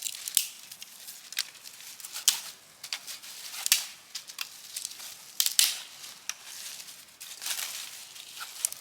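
Dry twigs and leaf litter being handled, with irregular crunching, crinkling and several sharp cracks.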